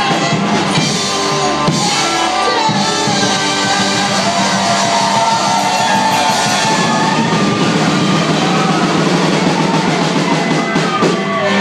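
Live rock band playing a loud instrumental passage: drum kit, acoustic and electric guitars, fiddle and trumpet, with the fiddle and trumpet carrying the melody.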